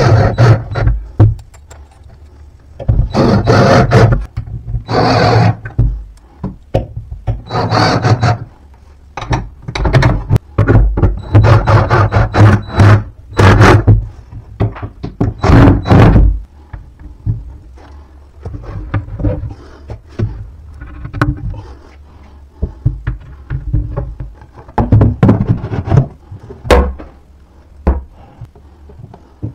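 Cordless drill-driver running in short bursts of a second or two, driving screws into concealed cabinet hinges, each burst with a steady motor hum. In the second half the bursts give way to scattered knocks and clunks of the cabinet door and panels being handled.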